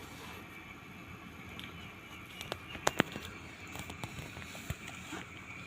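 A few sharp clicks and light knocks from handling the patient monitor as it is switched on, over a faint steady high-pitched whine.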